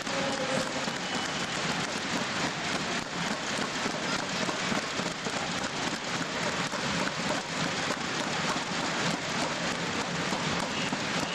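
Crowd applauding steadily, a thick even patter of many hands clapping.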